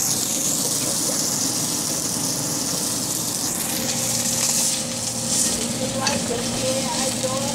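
Pork chops frying in a pan, a steady sizzle.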